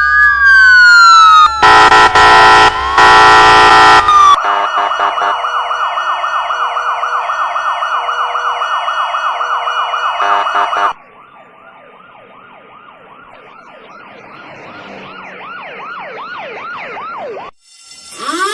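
A run of emergency-vehicle siren clips. First a wail falls away, then comes a loud blaring blast for about three seconds, then a fast yelp at about four cycles a second. After that a quieter yelp grows steadily louder, and a new wail starts rising right at the end.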